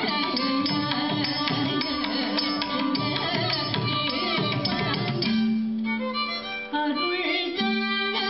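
Live Carnatic music: a violin playing a wavering melody over a steady drone, with drum accompaniment.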